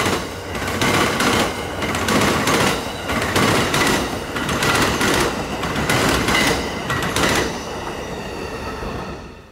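Amtrak passenger train passing at speed close by, its wheels clacking in a steady quick rhythm over a roar of rolling noise, dying away near the end.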